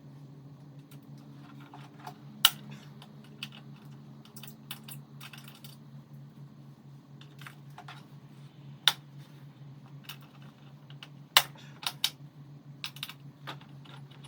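Light clicking and tapping of a 5 mm Allen key working the bolts out from under a motorcycle's rear fender, with a few sharp metallic clicks standing out. A steady low hum runs beneath.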